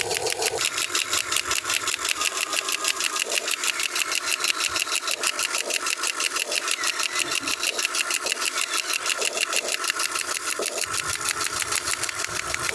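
Concrete breaker attachment on a Huina 1580 RC excavator hammering in rapid, even strokes, a fast steady mechanical chatter with no pauses.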